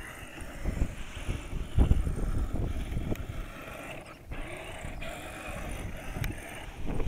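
Wind buffeting the microphone in uneven gusts, loudest about two seconds in, over the faint whir of a 1/10-scale RC crawler truck's electric motor and gears as it crawls over the sand.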